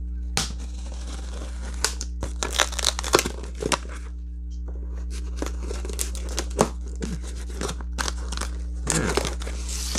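Packaging being torn open and crinkled by hand: a run of quick rips and crackles, busiest about two to four seconds in, with a single sharp snap later and more rustling near the end, over a steady low hum.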